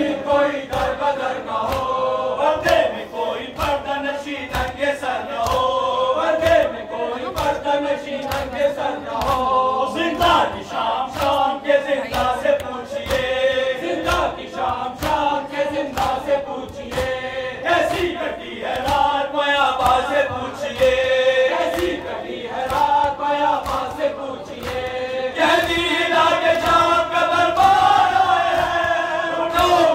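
A group of men chanting an Urdu noha (Shia lament) in unison, led over a microphone, with a steady rhythm of sharp slaps from mourners beating their chests in matam.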